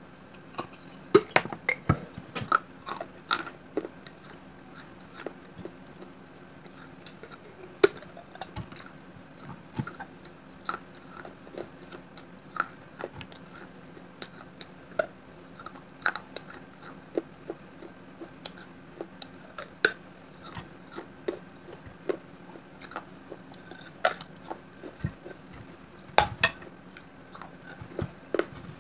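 Fired clay being bitten and chewed: a terracotta gulak (clay piggy bank) coated in red clay paste, cracking and crunching between the teeth. The sharp cracks come at irregular intervals, in a dense run of loud snaps in the first few seconds and again later on.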